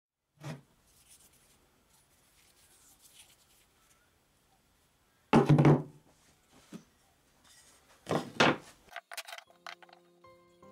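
Thunks and rubbing of a steel hammer head and a wooden handle blank being handled on a plywood workbench, with the loudest knock about five seconds in and two more near the end. Music fades in over the last second.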